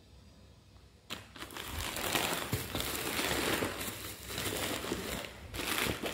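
Plastic courier bag and bubble wrap crinkling as they are handled and pulled open by hand, starting about a second in and going on in uneven bursts.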